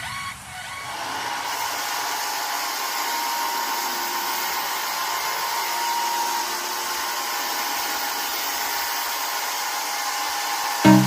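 Robot vacuum cleaner's suction fan motor running steadily, an even whir with a faint whine, building up about a second in. Music cuts in just before the end.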